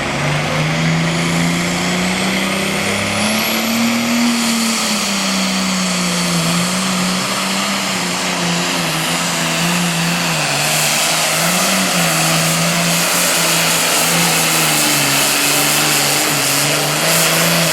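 Super Farm class pulling tractor's diesel engine running hard at full power under load, its note wavering up and down as it drags the sled, with a thin high whine climbing over the first few seconds.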